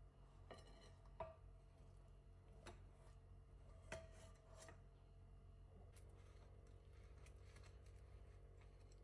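Faint taps and scrapes of a spatula and nonstick pan edge against a ceramic plate as a folded tortilla wrap is slid out, then a knife cutting through the wrap, over a low steady hum.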